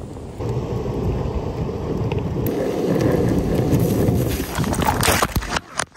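Wind buffeting the microphone over the rumble of an Outdoor Master Booster electric skateboard's wheels rolling along pavement, a steady noise that cuts out abruptly a few times near the end.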